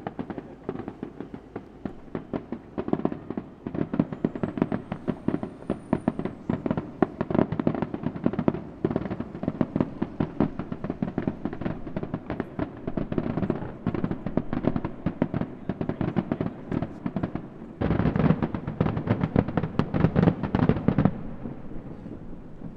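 Aerial fireworks going off continuously: a dense run of rapid bangs and crackles from many shells and bursting stars. About eighteen seconds in, a louder, faster volley of bangs starts and stops suddenly some three seconds later.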